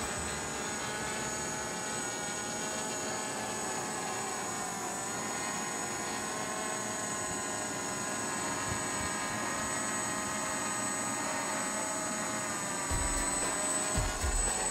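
Small electric quadcopter in flight, its four motors and propellers making a steady multi-toned buzz whose pitch wavers a little as the throttle changes. Some low rumbling comes in near the end.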